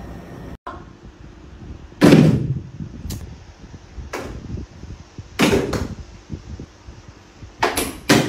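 A series of sharp knocks and thumps at irregular intervals, the loudest about two seconds in, with a close pair near five and a half seconds and another cluster near the end.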